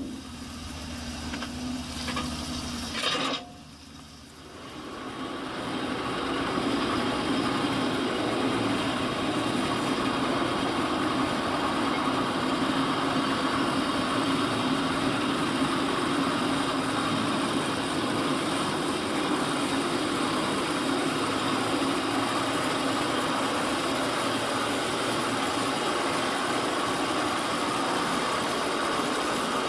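An engine running steadily, after a sudden change of sound about three seconds in.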